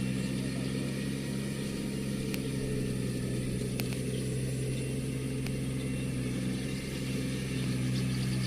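Iseki NT540 tractor's diesel engine running steadily at an even speed, easing slightly about seven seconds in before picking up again.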